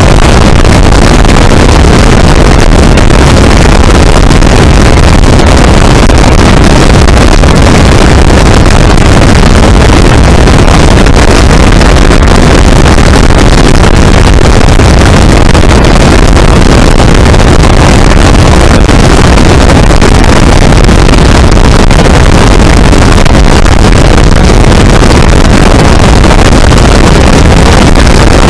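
Open-cockpit biplane in steady cruise: engine drone and rushing wind buffeting the microphone, so loud it pins the recording at full scale and stays unchanged throughout.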